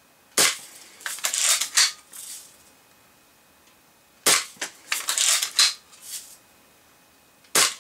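Crosman Marlin Cowboy lever-action BB rifle firing three times, about three and a half seconds apart. After each of the first two shots comes a short clatter of clicks as the lever is worked to cock it for the next shot.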